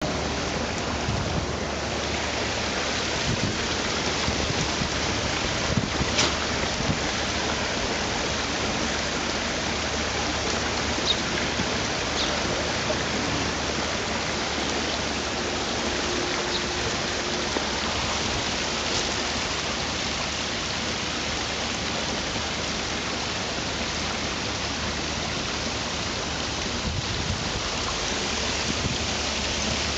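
Steady rushing splash of a small garden-pond waterfall pouring over rocks, with a few faint brief ticks on top.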